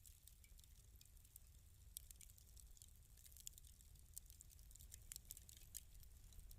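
Fireplace fire crackling softly: scattered small crackles and pops over a low, steady rumble.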